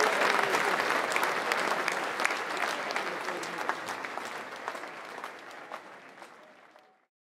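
Audience applauding, the clapping fading out steadily until it stops about seven seconds in.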